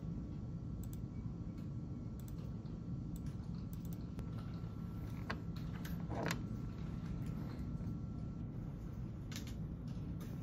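Quiet office room tone: a steady low hum with scattered light clicks of a computer mouse and keyboard, and a few slightly louder rustles of clothing in the second half as a cardigan is taken off.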